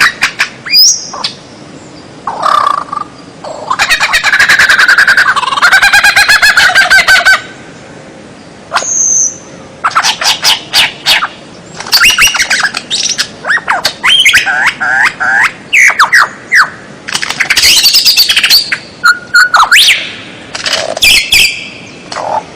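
White-rumped shama (murai batu) singing a loud, varied song: a long run of rapid chattering notes, a clear whistle, then phrase after phrase of quick sweeping and harsh squawky notes with short pauses between.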